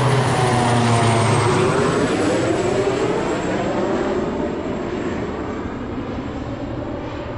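Engines of a small airliner on approach passing overhead. The engine sound falls in pitch as it goes by, loudest about a second in, then fades steadily.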